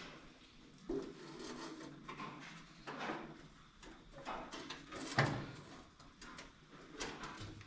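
Irregular clunks, scrapes and rubbing as the International Cub's hood, heavy with gasoline in its tank, is worked into place on the tractor, with a sharper knock about a second in and the loudest clunk about five seconds in.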